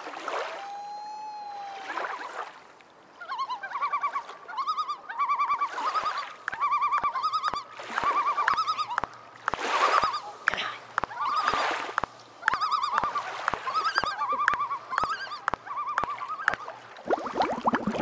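A flock of flamingos honking: short nasal calls repeated in quick clusters, with a few water splashes among them. Near the end it breaks into rapid bubbling.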